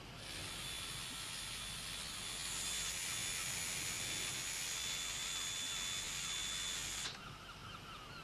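A steady hiss, like gas or spray rushing out, with a faint high whine in it. It cuts off abruptly about seven seconds in.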